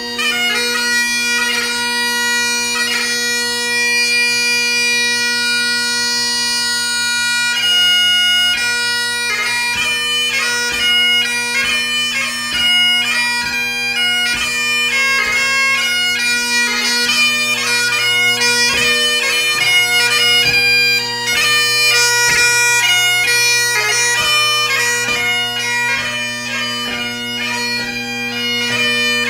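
Great Highland bagpipe played solo, its drones holding a steady low chord under the chanter. The chanter holds a long note for the first several seconds, then breaks into a quick ceol beag (light-music) tune of fast-changing notes with sharp gracenotes.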